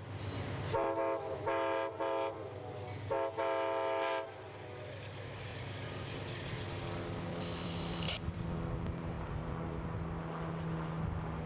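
Locomotive horn of an Amtrak passenger train sounding four blasts, the third one short, followed by the steady rumble of the train running with a low engine hum.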